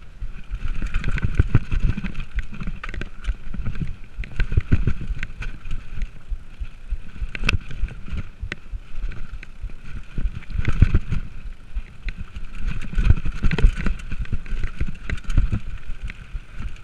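Mountain bike ridden fast down a dirt singletrack: a steady low rumble of tyres and air on the mic, with frequent sharp rattles and knocks as the bike bounces over bumps and roots.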